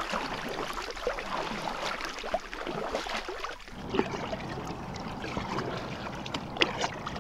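Kayak being launched and paddled in shallow marsh water: water splashing and sloshing, with a couple of sharp knocks.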